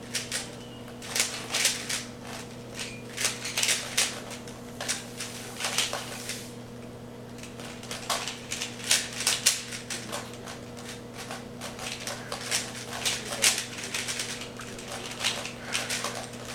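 Rubik's cubes being turned rapidly: quick runs of plastic clicking and clacking as the layers twist, with brief pauses between runs.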